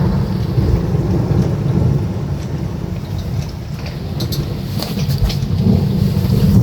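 Wind buffeting the microphone: a loud, fluctuating low rumble with a few scattered clicks.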